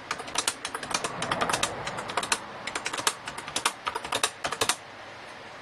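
Keys of a Brother BP-30 electronic typewriter being typed in a quick, irregular run of clicks as data is entered for a pie chart. The clicks stop just under a second before the end.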